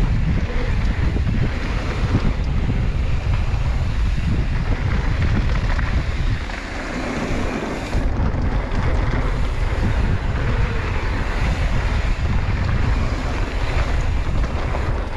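Heavy wind rushing over the microphone with a steady low rumble while riding a mountain bike down a flow trail; it eases briefly about seven seconds in.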